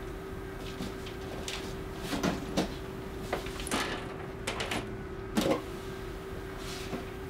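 A leather suitcase being handled and lifted onto a luggage rack: a string of irregular knocks and clicks, the loudest about five and a half seconds in, over a steady low hum.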